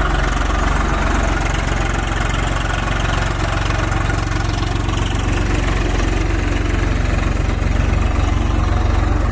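Swaraj 744 FE tractor's three-cylinder diesel engine running steadily while pulling a five-tine cultivator through the soil, its even firing beat unchanging throughout.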